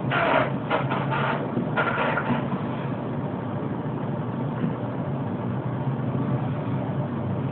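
A man snoring: two rasping snores in the first two seconds or so, over a steady low hum.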